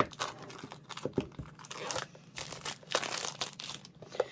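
Plastic shrink wrap being torn and peeled off a cardboard paint box, crinkling and crackling in irregular bursts with sharp snaps.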